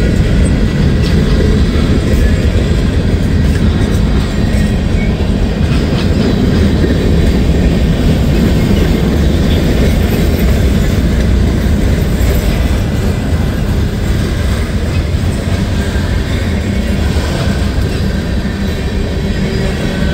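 Norfolk Southern freight train rolling past: a steady, loud rumble of the cars with wheels clicking over the rail joints and a faint wheel squeal.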